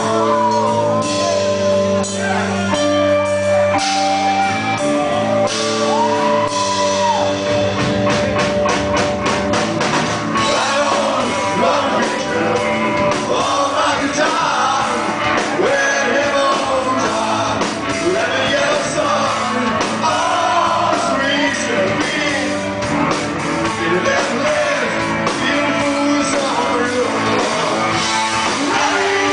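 Live rock band playing: held instrument notes at first, then the drums come in about eight seconds in, and a singer's vocals join over the guitars and drums.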